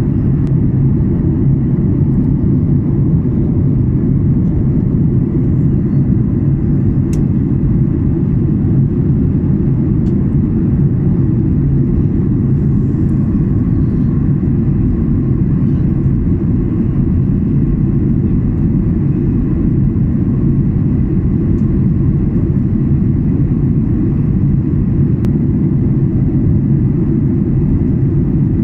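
Steady low drone of an airliner cabin in flight, the jet engines and rushing air making an unchanging rumble.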